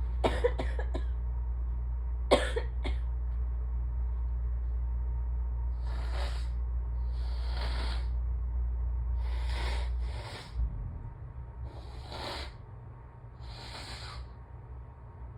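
A short cough-like burst and a few sharp clicks in the first three seconds, then a series of six sharp sniffs through the nose, a second or two apart, from a woman with allergy-blocked, irritated sinuses.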